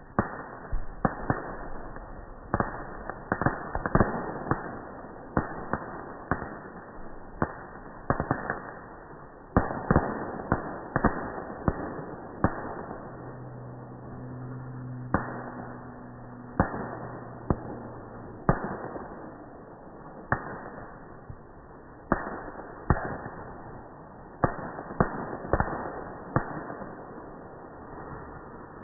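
Fireworks going off: a long irregular run of sharp bangs and cracks, sometimes several close together, each trailing off briefly. A steady low hum sounds for a few seconds about halfway through.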